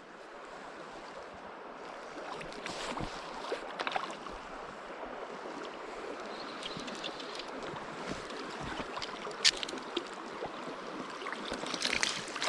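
Stream water running steadily, with scattered small splashes and taps. The sharpest tap comes about nine and a half seconds in.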